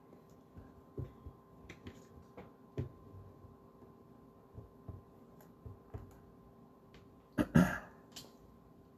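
Scattered clicks and light knocks of things being handled, with a louder double knock about seven and a half seconds in; a faint steady hum runs underneath.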